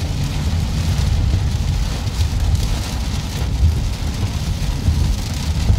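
Heavy rain hitting a car's roof and windshield, heard from inside the cabin, over the steady low rumble of the car driving on a wet highway.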